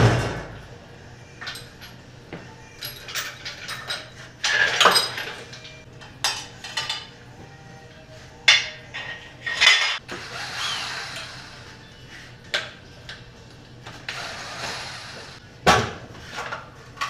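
Metal tools and engine parts clinking, knocking and scraping irregularly during the tear-down of a small-block Chevy engine, with a few short rattling scrapes in between.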